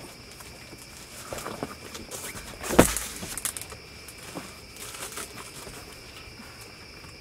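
A stiff panel being handled inside a car's cargo area: rustling and bumping, with one sharp knock about three seconds in. A steady high chirring of insects runs underneath.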